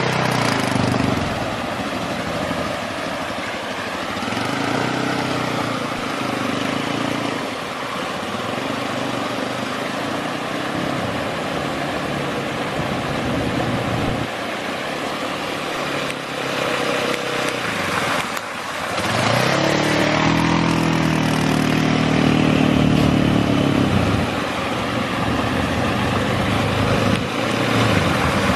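ATV engine running as it is ridden. About two-thirds of the way in, its note rises and gets louder for several seconds under throttle, then eases.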